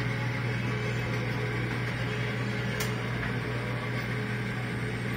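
Steady hum and whir of a motor-driven John Deere 531 display engine turning over slowly, with a single click about three seconds in.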